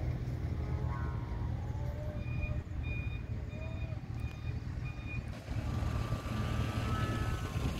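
A run of about six short, high electronic beeps, evenly spaced roughly half a second apart, from about two seconds in to about five, over a steady low rumble.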